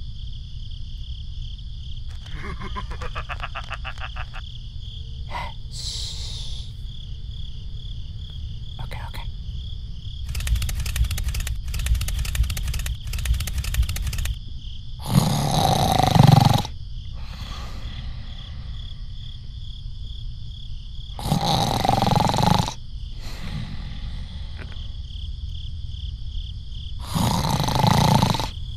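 Crickets chirping steadily, with three loud roar-like growls about six seconds apart, each lasting about a second.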